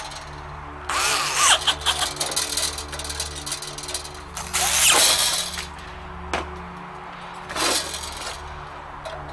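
Screws being driven into a sheet-metal blast gate on a stove pipe: three bursts of grinding and squealing metal work, the loudest about halfway through.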